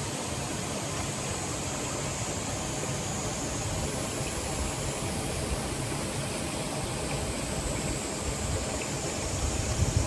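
Mountain stream water running, a steady rushing noise; low wind rumble on the microphone starts near the end.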